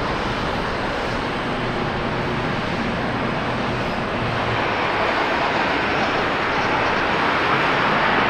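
Jet engine noise from a departing Airbus A330-300 climbing away. About halfway through it gives way to a second airliner, an Airbus A320 with CFM56 engines on the runway, whose engine noise grows steadily louder.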